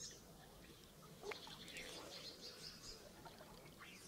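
Faint birdsong: short, high chirps over near silence, with a single soft tick a little over a second in.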